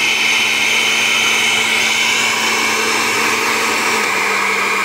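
Oster 14-speed countertop blender running steadily, its motor whirring as it blends a fruit smoothie. The motor's pitch drops slightly near the end.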